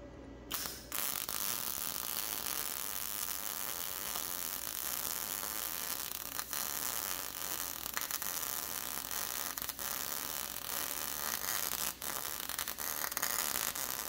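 MIG welding arc from a YesWelder Firstess MP200 running a bead on 14-gauge mild steel, striking about half a second in and then a steady, dense crackle with a few brief breaks.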